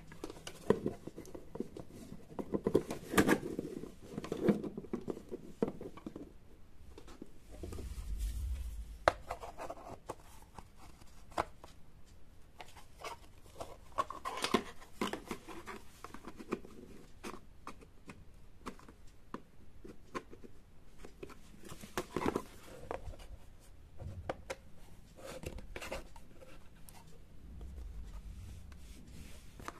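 Hands handling the paper wrapping and light plastic and card parts of a small model garage diorama: rustling, scraping and scattered small clicks, with a dull low thump about eight seconds in and another near the end.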